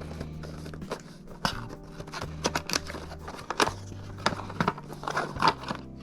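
Background music with a stepping bass line, over irregular clicks, taps and rustles of computer parts and packaging being handled during assembly.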